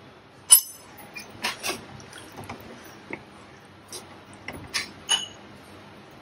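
Steel ladle stirring stew in a pan, clinking and knocking against the pot in a string of sharp, irregular clicks, the loudest about half a second in.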